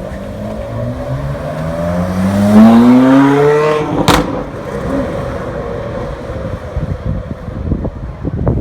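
Ferrari 458 Italia's V8 with an aftermarket exhaust accelerating hard, its note climbing steadily in pitch for about four seconds. It ends in a single sharp exhaust crack, and the engine runs on lower and rougher with a few small pops.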